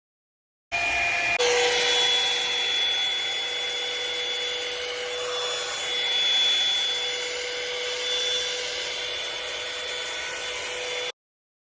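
Revlon One-Step hair dryer brush running steadily: a rush of air under a high motor whine. It starts abruptly about a second in, its pitch shifting once just after, and cuts off abruptly shortly before the end.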